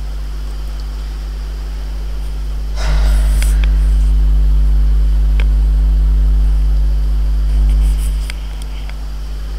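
Steady low electrical hum. About three seconds in, a louder low rumble swells in with a short rustle, lasts about five seconds and drops away, and a few sharp clicks sound over it.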